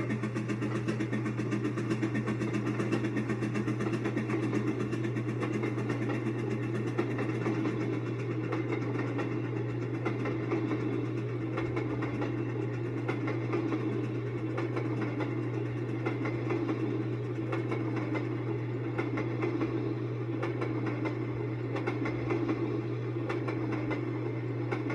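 Model train running past, the passenger cars rolling steadily along the track: a constant low hum under a rumbling wheel noise, with faint scattered clicks.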